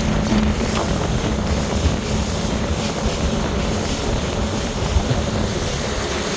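Small motor boat under way at speed, its engine running steadily beneath heavy wind noise on the microphone and water rushing past the hull.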